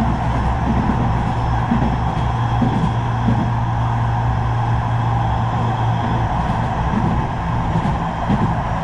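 Manchester Metrolink tram heard from inside the passenger saloon while running at speed: a steady rumble of wheels on rails with a low hum underneath.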